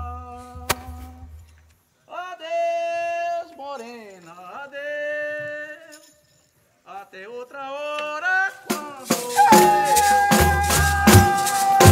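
Voices singing slow, long held notes and sliding phrases, with short pauses between them. About nine seconds in, maracas start shaking in a steady rhythm with low drum beats under a long held note.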